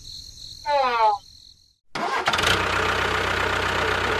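A short falling tone, a brief silence, then from about two seconds in a loud, steady motor running.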